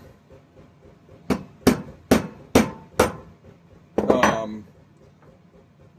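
Five sharp metal taps, about two a second, from a hammer driving a Welch plug back into a lawn mower carburetor.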